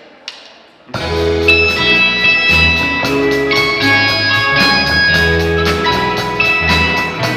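A single sharp click, then about a second in a slow song's instrumental intro starts: a guitar melody over a bass line and a steady beat.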